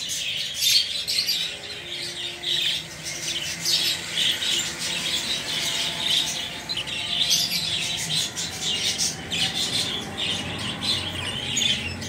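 Budgerigars chattering in a dense, unbroken stream of quick high chirps and squawks.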